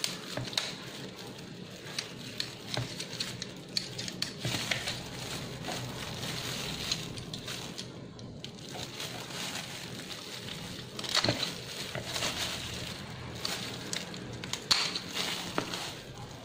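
Kitchen shears cutting up a raw chicken: irregular crunching snips through skin, joints and bone, a few sharper cracks about 11 and 15 seconds in.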